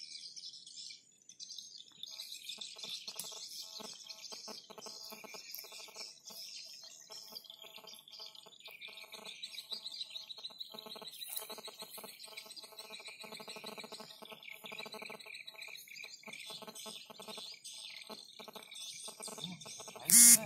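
Wild birds chirping and calling, a dense chorus of high, quick chirps and repeated short notes throughout. Right at the end a short, much louder burst cuts in.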